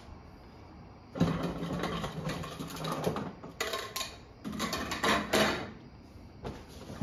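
Rustling and crinkling of packaging as animatronic parts are handled and pulled from a cardboard box, in two long bouts of crackly noise.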